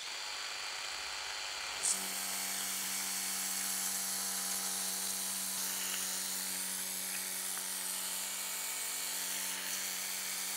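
WORX Hydroshot Nitro cordless pressure washer running at its high-pressure 56-bar setting: a steady electric motor-and-pump hum with a high hiss of water spraying from a water broom onto concrete. The hum comes in about two seconds in.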